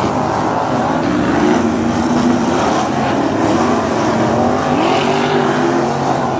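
Several 305 winged sprint cars' V8 engines running together, their pitches wandering up and down as the drivers blip the throttles, with one car revving up about five seconds in.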